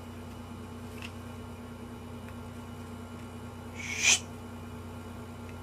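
A steady low electrical hum, with one short, sharp breathy hiss about four seconds in that is the loudest sound.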